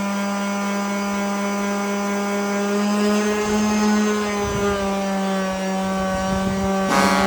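A small electric power tool running steadily on one even tone, its pitch dipping and rising slightly in the middle.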